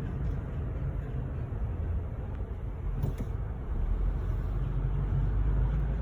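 Car on the move: a steady low rumble of road and engine noise that grows louder about four seconds in, with a brief click about three seconds in.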